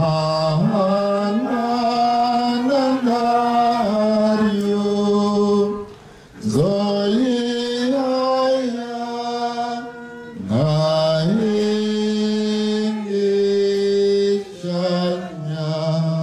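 A single voice chanting a sung prayer in long held notes that step up and down, in phrases broken by short pauses about six, ten and fourteen seconds in.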